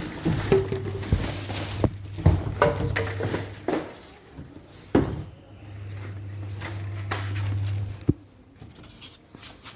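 Scattered knocks, clicks and handling noises, the sharpest about five seconds in, over a steady low hum: packaging and parts being handled while a washing machine is unboxed.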